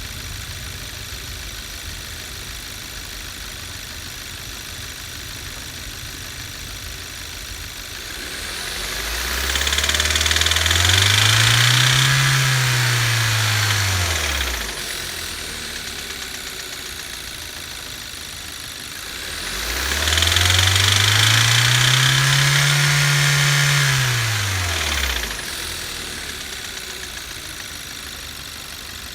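A 2015 Kia Rio's 1.6 GDI four-cylinder engine idling, then revved up and let fall back twice. At high revs it knocks loudly from the bottom end: rod knock from spun connecting-rod bearings with too much clearance.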